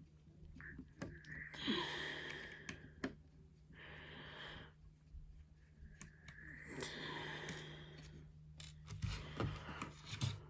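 A small screwdriver backing screws out of a plastic media remote's case: three stretches of scraping as it turns, with small clicks in between.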